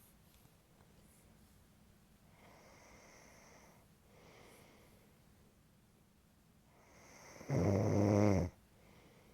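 Snoring during sleep: two quieter, breathy snoring breaths, then one loud, low-pitched snore lasting about a second near the end.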